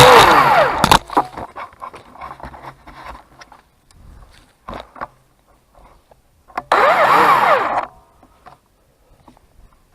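Craftsman 40V cordless electric chainsaw's motor winding down in pitch as the trigger is let go, stopping about a second in, followed by scattered clicks and crackles. About seven seconds in, the saw gives one more brief burst of about a second and coasts down again.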